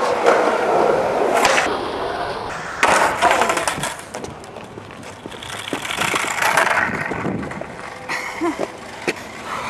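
Skateboard wheels rolling on rough pavement in three noisy stretches, with the board clattering against the ground as the skater bails, then a few sharp knocks near the end.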